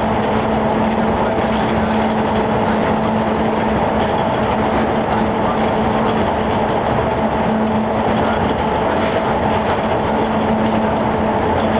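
Automatic box-freezing plant running steadily: a constant industrial machinery hum with a low steady tone over even noise.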